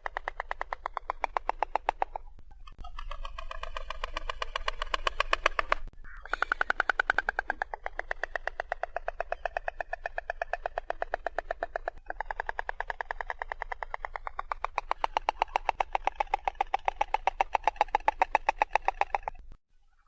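Stork bill-clattering: rapid, hollow-sounding clicks of the beak snapping open and shut, in four long bouts with brief pauses between them.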